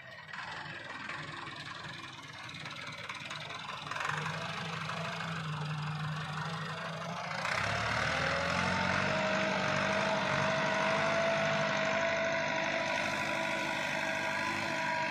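Massey Ferguson 375 tractor's diesel engine running under load while pulling a disc harrow, getting louder about halfway through as it draws nearer. From then on a steady high whine sounds over the engine.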